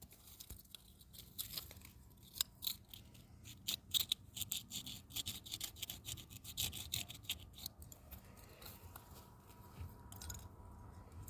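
Rapid small scraping and clicking of a tool working at an RFID lock's circuit board, densest in the middle seconds and thinning out near the end.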